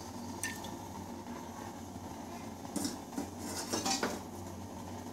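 Metal kitchen utensils clinking and scraping against a kadai: one clink about half a second in, then a handful more around three to four seconds in, over a steady low hum.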